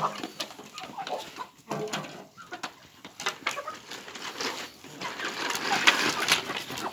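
Chickens clucking in a busy run of short calls, fullest near the end.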